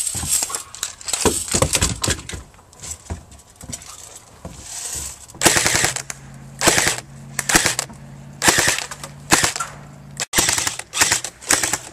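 Gunfire in short bursts: rapid shots in the first couple of seconds, then a string of short bursts about a second apart.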